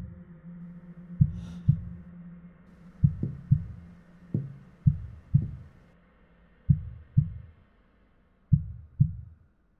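Heartbeat sound effect: pairs of deep thumps about half a second apart, repeating every second or two over a low, steady hum. It stops shortly before the end.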